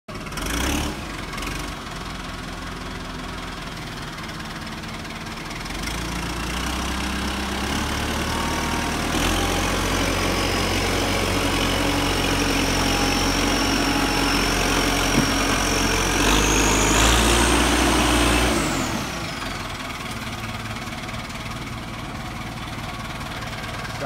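Diesel engine of a JCB 214 Series 3 backhoe loader running, revved up from about six seconds in and held at higher revs with a high whine that climbs, then dropping back to a steady idle a little after eighteen seconds as the whine glides down.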